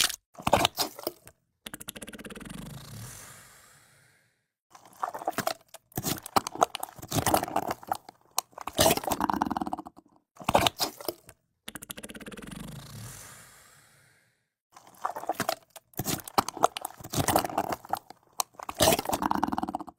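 Monster sound effects for a giant sea worm: clusters of sharp clicks and cracks, broken by a quieter, falling, noisy sound and brief silences. The whole sequence repeats about every ten seconds, like a loop.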